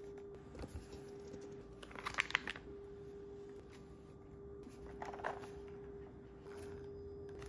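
Retail packaging of rifle parts handled in the hands: plastic and cardboard rustling and clicking in a short flurry about two seconds in and again about five seconds in, over a faint steady hum.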